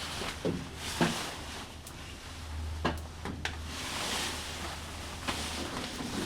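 Hands working on a cable and test gear: a few sharp clicks and knocks, with scraping and rustling, over a low steady hum.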